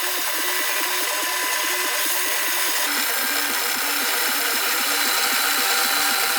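Bandsaw running and cutting wood: a steady hiss of blade and motor with a pulse about five times a second.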